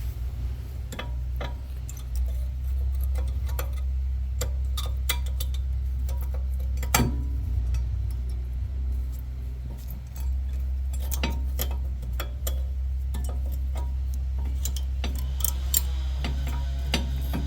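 Steel-backed brake pads being fitted into a caliper bracket: scattered metallic clicks and taps as they are worked into their slots, over a steady low hum.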